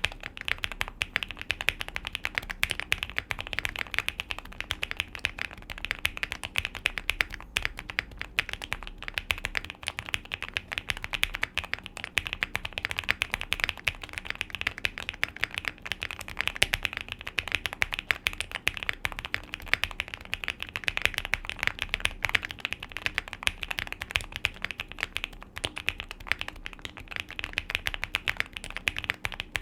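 Continuous fast typing on a QK65 mechanical keyboard fitted with lubed and filmed Epsilon switches, a POM plate and PBT keycaps: a dense, even stream of key clacks.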